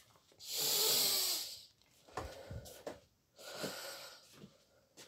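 A man's loud, breathy exhale lasting about a second, followed by a few softer breaths and small mouth sounds.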